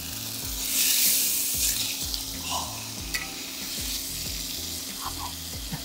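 Boneless beef flanken searing in hot olive oil in a pot, a steady sizzle that swells for about a second near the start as the meat is flipped with metal tongs. A few light clicks of the tongs against the pan.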